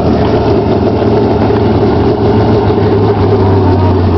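Demolition derby car's engine running loud and steady, with an even low hum.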